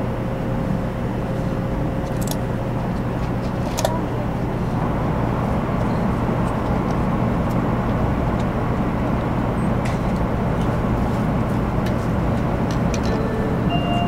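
Cabin noise of a JR West 500 series Shinkansen running at speed: a steady rumble that grows a little louder about four seconds in as the train enters a tunnel, with a couple of sharp clicks before that.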